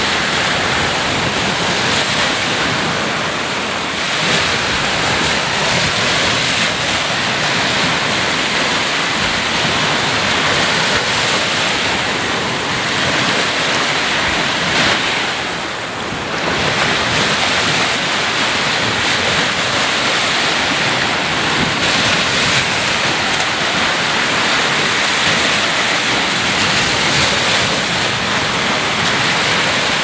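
Ocean surf washing up onto a sandy beach: a steady, even rush of breaking and receding waves that eases briefly about halfway through, then swells again.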